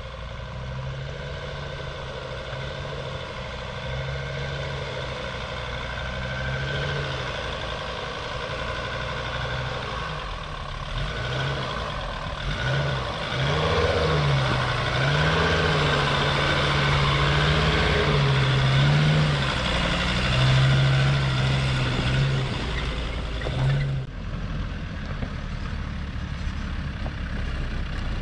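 Jeep Grand Cherokee WJ 2.7 CRD diesel engine working at low speed as the SUV crawls over deep ruts on a dirt track, its revs rising and falling and getting louder as it comes closer. After a sudden cut near the end, a Land Rover Discovery's engine is heard as it starts over the same ruts.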